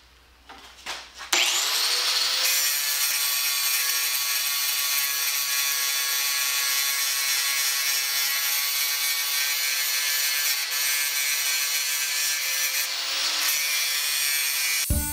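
Angle grinder starting up about a second in and grinding down the weld on a steel wheelbarrow rim: a steady motor whine over the hiss of the disc on metal. Near the end it gives way to music.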